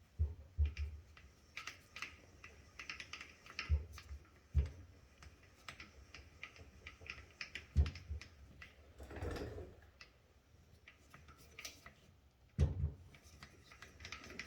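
STIHL rivet spinner being spun to peen over a chainsaw chain rivet: irregular light metal clicks and ticks, with a handful of louder knocks and a brief rush of noise a little past the middle.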